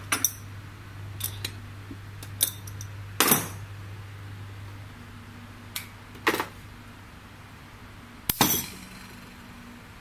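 Pneumatic cable stripping machine giving a series of sharp metallic clacks, about eight in all at irregular intervals, some followed by a brief rush of air, over a steady low hum.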